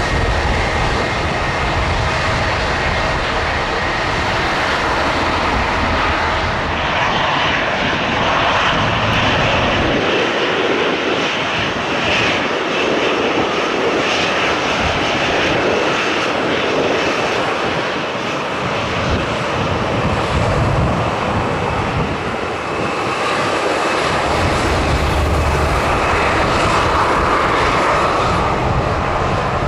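Jet airliner engines running close by: a loud, steady rush with thin whining tones over it. The deep low end fades for several seconds mid-way and comes back strongly near the end.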